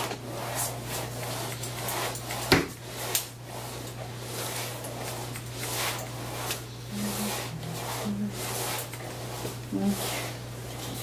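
Hair being cut with scissors and combed: a run of short, crisp snips and strokes at an uneven pace, with one sharp click about two and a half seconds in. A steady low hum runs underneath.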